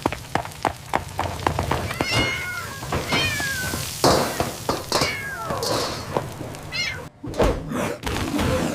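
A cat meowing several times in short gliding calls, over a run of quick clicks and knocks in the first couple of seconds and a few thumps.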